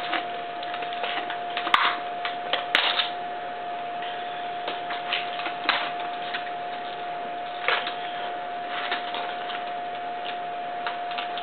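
Scattered light clicks and rustles of hands handling a scale model excavator and its packaging, over a steady high-pitched whine.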